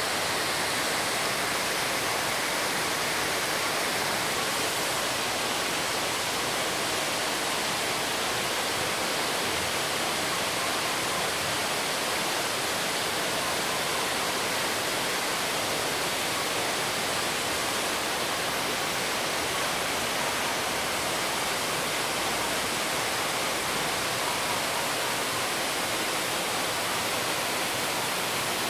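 Steady rushing noise, even and unbroken, with no separate events in it.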